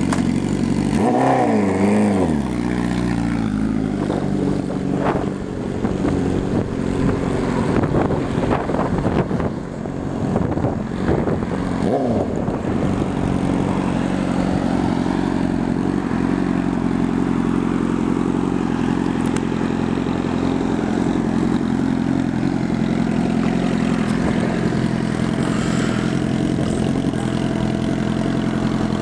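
Honda CBR1000RR inline-four through a Hot Bodies Racing megaphone exhaust: revving as it pulls away about a second in, then accelerating through the gears as it moves off. A steady engine drone continues under it and carries on for the rest.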